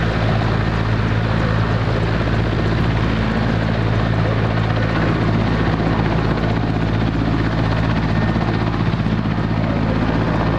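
Mil Mi-17 helicopter's twin turboshaft engines and rotors running on the ground: a steady, loud drone with a deep hum and turbine noise, unchanging throughout.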